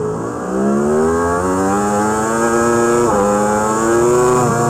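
Yamaha R1 racing superbike's inline-four engine accelerating hard out of a corner, the pitch climbing steadily, then dropping sharply at an upshift about three seconds in, climbing again and dropping at a second upshift near the end.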